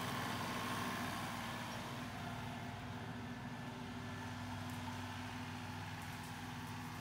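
Compact John Deere tractor's diesel engine running steadily under work, growing slightly fainter as the tractor moves away.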